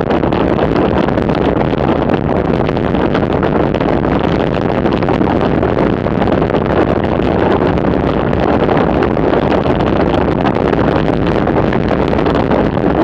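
Steady rush of wind over a bike-mounted camera's microphone during a road-bike descent at about 50 km/h.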